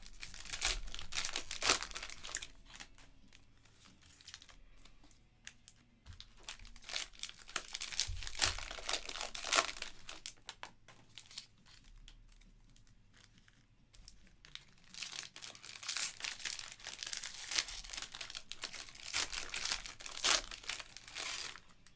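Plastic wrappers of Panini Prizm basketball card multi-packs being crinkled and torn open by hand. The crinkling comes in three spells with quieter pauses between.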